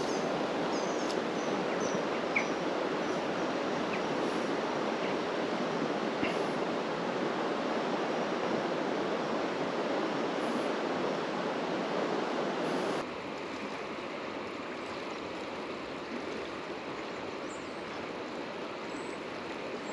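Fast-flowing river water rushing steadily over stones, a dense even rush that drops suddenly to a quieter level about thirteen seconds in.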